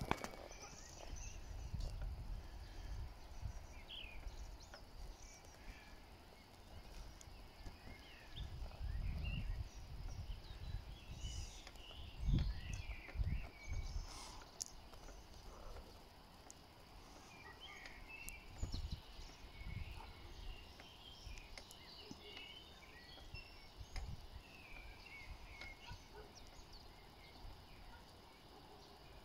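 Wind gusting over the microphone in irregular low rumbles, with small birds chirping and whistling in the surrounding trees throughout.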